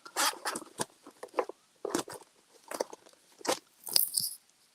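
Small plastic packets of craft embellishments being handled and sorted: an irregular run of crinkles and clicks, with a sharper rustle about four seconds in.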